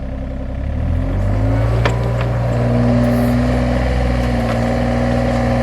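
John Deere 35G mini excavator's diesel engine speeding up from idle about a second in, then running steadily at higher revs. A single sharp click near two seconds.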